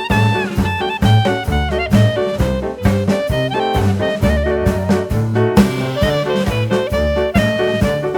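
Background music: upbeat swing jazz with brass and saxophone over a steady beat.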